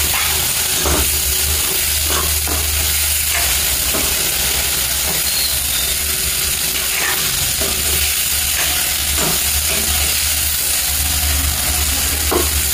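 Stuffed eggplants frying in masala and oil in a metal kadhai, sizzling steadily, while a metal ladle scrapes and knocks against the pan every second or so as they are turned. A steady low hum runs underneath.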